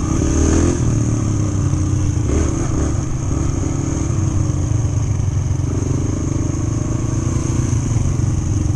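Yamaha TT-R125 trail bike's single-cylinder four-stroke engine running at a steady cruise, heard up close from the bike's own onboard camera.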